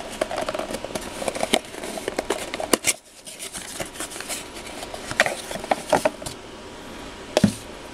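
Thin cardboard box being opened by hand and a mug slid out of it: paperboard scraping and rustling, with scattered sharp clicks and taps as the flap and box are handled.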